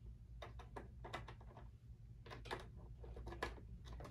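Faint, scattered plastic clicks and taps of an HDMI cable plug being handled and pushed into a laptop's side port, in two short clusters.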